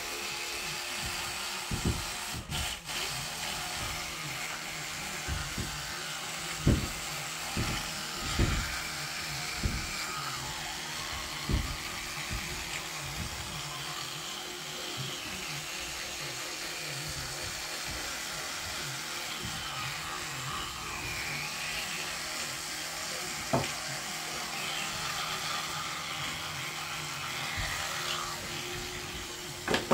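Electric toothbrush buzzing steadily while brushing teeth, with a few brief knocks scattered through.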